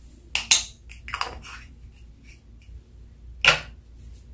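Hard plastic eyeshadow containers clicking and tapping against a glass baking dish: a few quick taps in the first second and a half, then one sharp click about three and a half seconds in.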